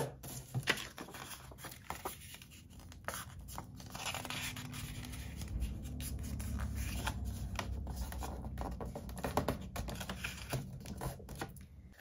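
Cardstock being handled on a plastic scoring board: the sheet slid and scored with a bone folder, then folded and creased by hand. Scattered scratches, taps and rustles of paper.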